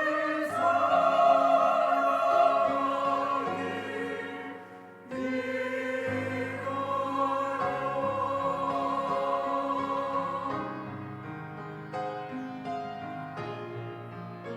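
A church choir singing a sacred anthem with keyboard accompaniment in long, held phrases. One phrase dies away about four and a half seconds in and a new one begins. The voices drop out near the end, leaving the piano playing on.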